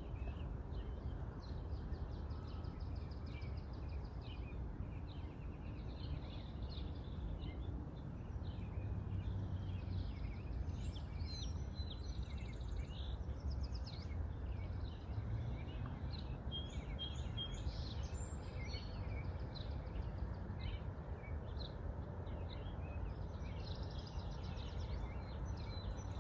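Many small birds chirping at once, short calls and trills overlapping throughout, over a steady low rumble of background noise.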